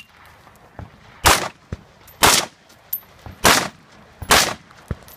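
Rifle shots fired one at a time, four loud cracks about a second apart, with fainter sharp cracks between them: a competitor's string of fire on a practical-shooting stage.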